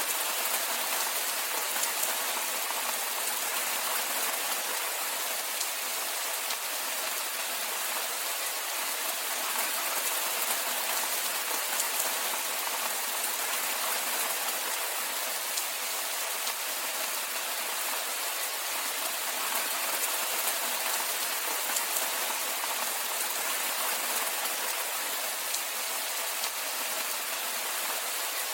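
Steady rainfall, a dense even hiss of drops with fine crackle from individual drops hitting a surface.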